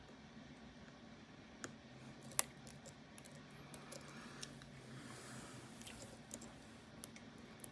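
Faint, scattered small clicks and ticks of lock-picking tools working in an Assa Twin 6000 high-security lock, with one sharper click about two and a half seconds in and a brief soft scrape a little past the middle.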